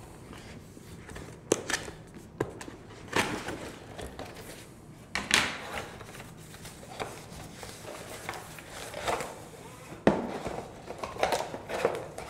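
A cardboard box being opened and its packaging handled: scattered taps and knocks of the cardboard lid and flaps, and rustling of the white wrapping around the keyboard as it is lifted out. The strongest rustle comes about five seconds in and a sharp knock about ten seconds in.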